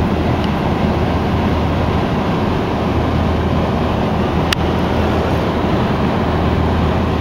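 Lawn mower engine running steadily with a constant low hum, and a single sharp click about four and a half seconds in.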